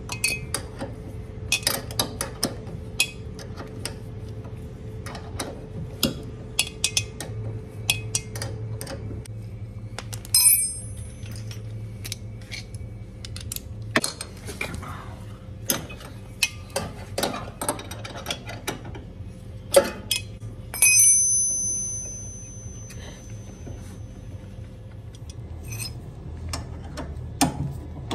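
Hand tools clicking and clinking against metal while working on a refrigerator compressor, with two loud ringing metallic clanks about ten and twenty-one seconds in, over a steady low hum.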